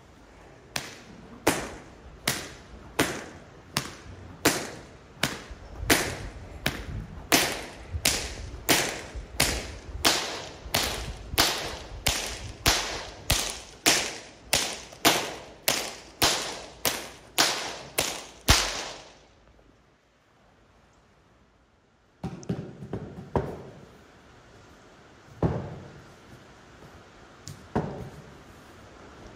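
About two dozen sharp whip cracks in a steady rhythm, roughly three every two seconds, each echoing briefly in a wooden arena. After a pause, a few dull thuds of a large inflatable exercise ball being bounced and thrown.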